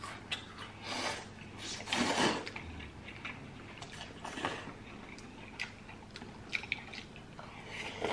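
Eating sounds: noodles and soup slurped, with chewing and small clicks of utensils. The loudest slurps come about one and two seconds in.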